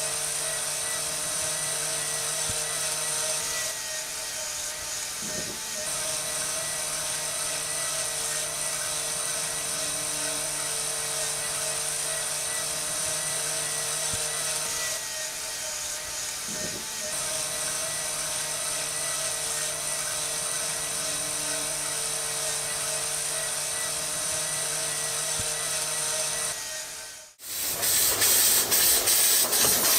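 Small electric motor of a model loading tower running with a steady whine, easing off briefly twice. Near the end it cuts out abruptly and a louder hiss with fast, regular clicking takes over.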